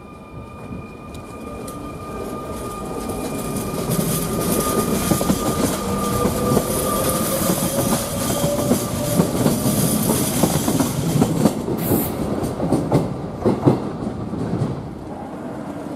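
SNCF Z 23500 double-deck electric multiple unit passing by: its running noise builds over the first few seconds, stays loud with a rush of wheels and a run of clicks over the rail joints, then drops sharply as the last car clears, about fifteen seconds in.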